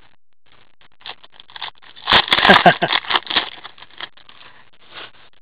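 Foil trading-card pack wrapper crinkling and tearing open in gloved hands. The crackling is loudest about two to three and a half seconds in.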